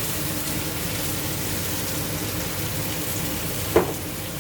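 Marinated chicken pieces sizzling steadily as they fry in hot oil in a pan, with one short knock near the end.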